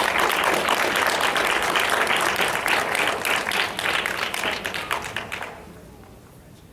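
Audience clapping, dying away about five and a half seconds in.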